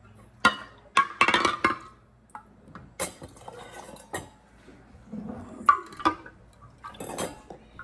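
Hard objects being handled, clinking and knocking against each other like dishes and utensils: a string of sharp clinks, busiest in a quick cluster about a second in, then scattered single knocks.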